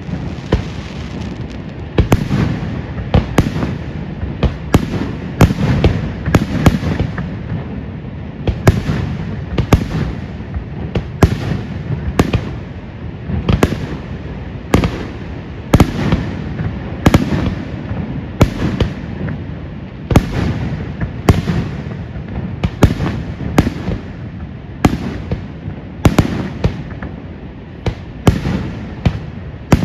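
A fireworks display: shells bursting in quick succession, roughly one or two sharp bangs a second, over a continuous low rumble and crackle.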